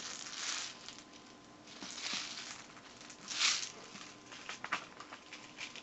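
Handling noises while airsoft BBs are being got out: three soft rustling swishes and a few small clicks.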